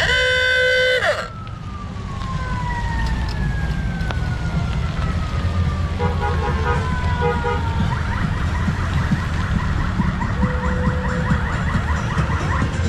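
Touring motorcycles rumbling past in a parade. A loud horn blast of many tones drops in pitch as it cuts off about a second in. Long, slowly falling tones and short horn toots follow over the engines.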